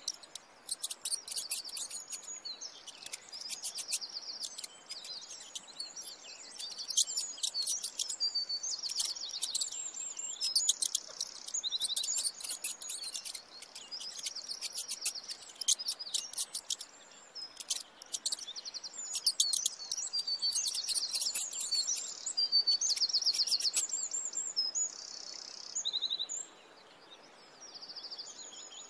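Small songbirds chirping and trilling in quick high-pitched runs, packed closely together with only a brief lull near the end.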